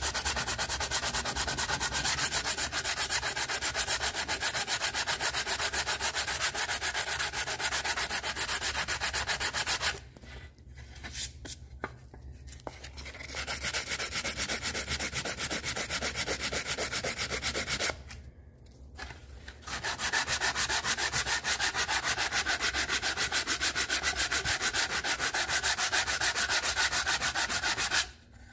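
Sandpaper on a hand sanding block rasping in quick back-and-forth strokes over an aluminum seat molding, block-sanding the dented trim. It runs in three long bouts, broken by two short pauses, one a third of the way in and one about two-thirds in.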